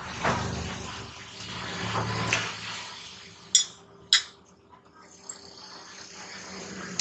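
Someone eating stir-fried noodles close to the microphone: mouth and chewing sounds, then two sharp clinks of a metal fork set down on a glass plate, about half a second apart.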